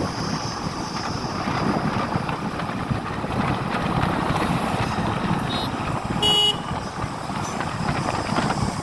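Steady wind and engine noise from a motorcycle on the move, with a short vehicle horn toot about six seconds in.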